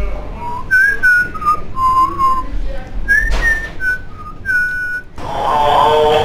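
A man whistling a tune, clear single notes stepping up and down. About five seconds in, music comes in.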